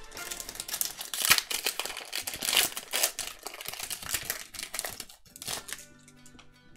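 Foil Pokémon trading-card booster pack wrapper being crinkled and torn open by hand: a dense run of crackling that dies away about six seconds in.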